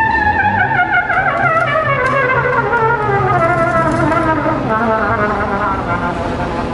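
Live small-group jazz: a trumpet plays a long phrase that falls steadily in pitch over about five seconds. Under it, an upright bass and a drum kit with cymbals keep time.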